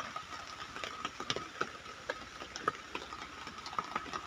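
Heavy rain falling, heard as irregular drops ticking sharply over a soft steady hiss, with a faint steady high tone underneath.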